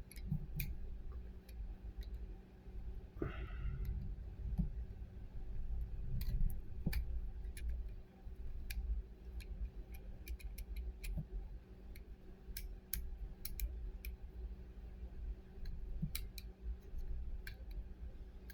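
Plastic number wheels of an Everbilt combination barrel bolt clicking through their detents as they are turned one by one to set a new combination. The clicks are irregular and scattered, with low handling noise underneath.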